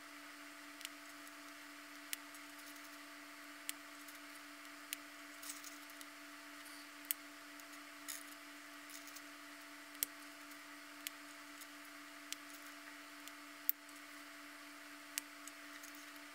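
Faint, sharp clicks of small plastic puzzle parts being handled and fitted, one every second or so, over a steady low hum.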